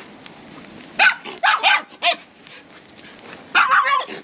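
Small dog barking at a stranger in short, sharp, high barks: four spaced barks, then a quicker run of barks near the end.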